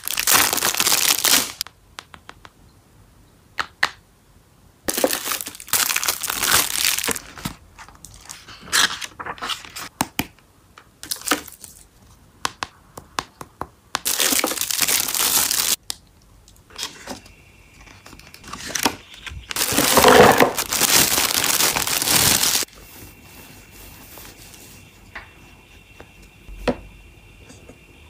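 Plastic packaging crinkling and rustling as wrapped items are handled, in four bursts of one to three seconds, with light clicks and taps between them.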